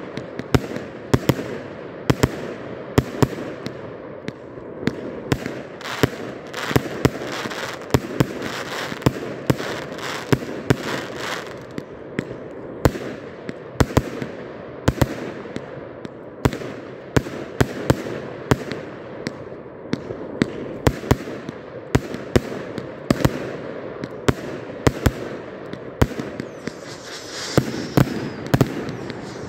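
A 100-shot firework cake firing a continuous barrage: sharp launch reports and star bursts come two or three times a second, with a hissing, crackling haze between them.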